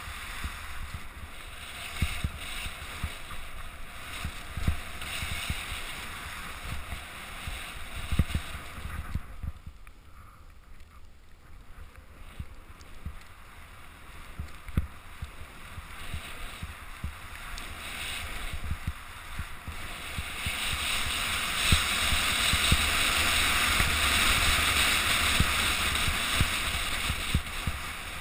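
Rushing wind on the microphone and the hiss and scrape of sliding fast over snow on a downhill run, with scattered low bumps. It eases off for a few seconds about nine seconds in, then grows loudest from about twenty seconds in until near the end.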